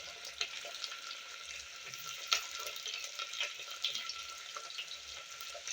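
Chopped onion and green chillies frying in hot mustard oil in a pressure cooker: a steady sizzle with scattered crackles and pops, one sharper pop about two seconds in.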